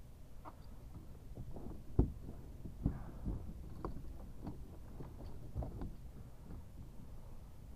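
Irregular dull knocks and thumps as a landing net holding a chinook salmon bumps against the plastic hull of a Perception Pescador Pilot 12.0 kayak; the loudest knock comes about two seconds in.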